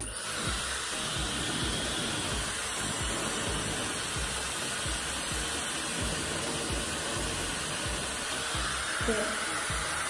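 Dyson Supersonic hair dryer blowing a steady rush of air. It starts abruptly and holds at an even level.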